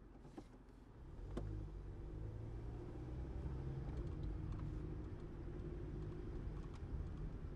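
Car driving: a low engine and road rumble that swells about a second in and then runs steadily, with a sharp click just after the rise.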